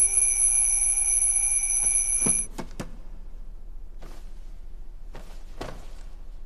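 Alarm clock ringing with a steady high-pitched tone that cuts off about two and a half seconds in. A few soft knocks follow.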